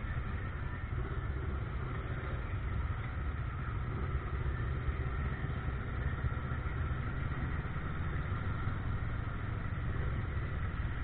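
A vehicle engine running steadily, with a constant low rumble.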